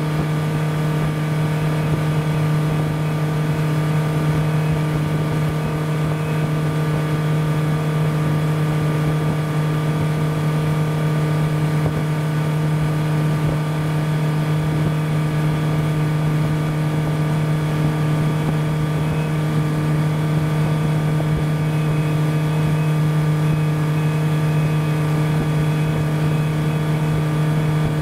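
Motorboat engine running steadily under way, a constant low drone that does not change in pitch or level.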